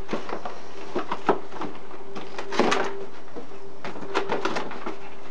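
Cardboard packaging being handled: the inner box slid out and its flaps unfolded, with scattered knocks, scrapes and rustles. Under it runs a steady hum from a loud household boiler.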